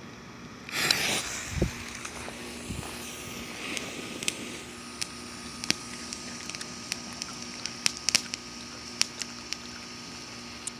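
TNT Fountain Flashers ground fountain firework burning: a louder rush as it catches about a second in, then a steady hiss of spraying sparks with scattered sharp crackling pops.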